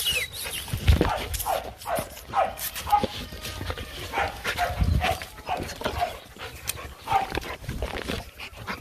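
Two young Rottweilers making many short, falling yips and whines while they play and jump on a person, with a few dull thuds about one second and five seconds in.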